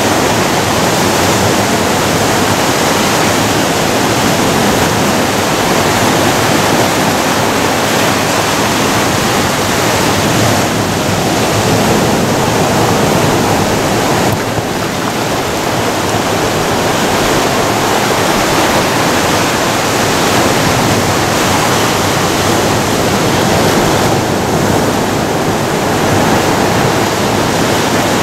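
Ocean surf breaking and washing in among beach boulders, a steady loud rush of water.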